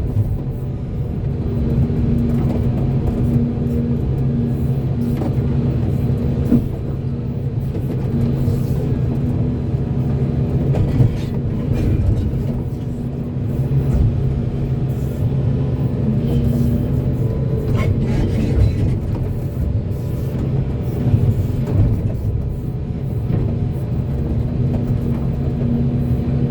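Volvo excavator's diesel engine running steadily as it works, with a few short knocks scattered through.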